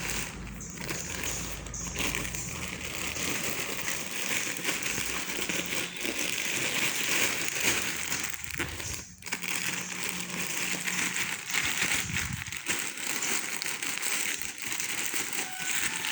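Parcel packaging being opened and handled, crinkling and rustling almost without a break, with many small crackles.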